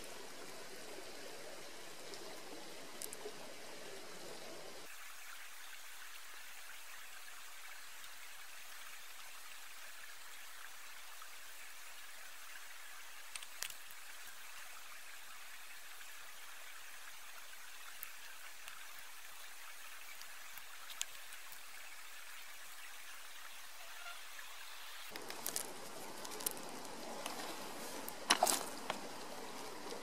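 Steady rush of a creek's flowing water, with scattered small clicks and rustles from hands fitting flat rubber bands to a wooden slingshot. The clicks come thicker and louder near the end.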